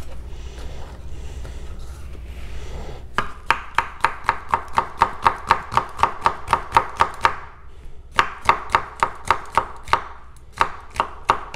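A ZDP-189 bunka kitchen knife slicing a red bell pepper into strips on a wooden cutting board. Starting about three seconds in, the edge taps the board at about four quick, even cuts a second. The cutting comes in three runs with two short pauses.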